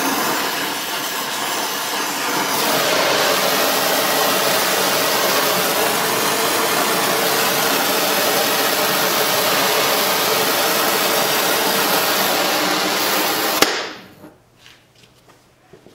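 Gas brazing torch flame hissing steadily while brazing a cracked cast-iron exhaust manifold with brass rod. The hiss grows heavier about three seconds in, then stops suddenly after a sharp click near the end, leaving only faint small ticks.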